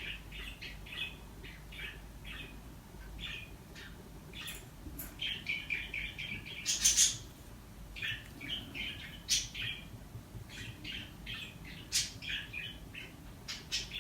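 A small bird chirping over and over in short, quick notes, with a few sharp high ticks mixed in.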